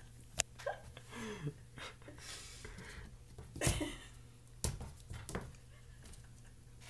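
A black kitten leaping and pawing at a wall after a laser dot: scattered sharp thumps and knocks from its paws and landings, the loudest about halfway through.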